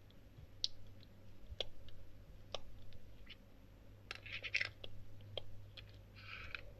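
Faint scattered clicks and taps of small plastic slime tubs, lids and a dropper bottle being handled by hand. There is a brief crackly cluster about four seconds in and a short rustle near the end.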